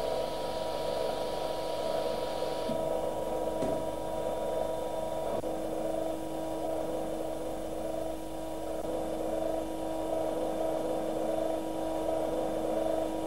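Hydraulic power unit running with a steady hum of several constant tones; a higher hiss drops out about three seconds in, and there are a couple of faint clicks.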